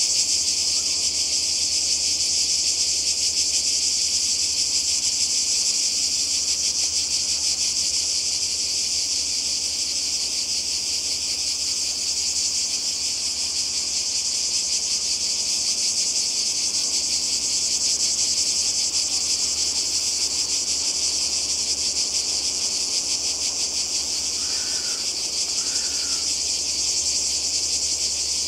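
Cicadas in chorus, a dense, steady, high-pitched buzzing that never lets up.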